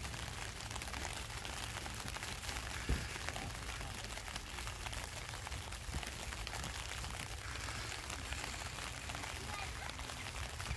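Steady hiss of rain with a low rumble underneath and a single sharp knock about three seconds in.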